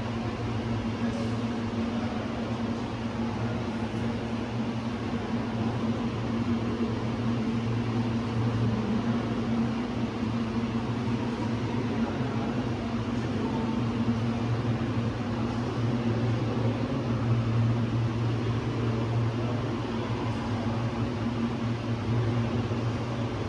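Steady low mechanical hum over a constant hiss, unchanging throughout.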